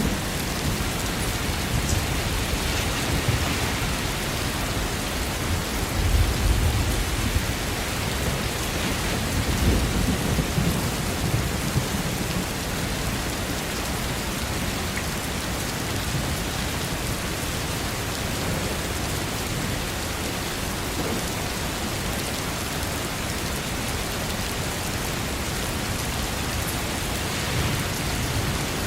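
Steady heavy rain, an even hiss, with low rumbles of thunder swelling about six and ten seconds in.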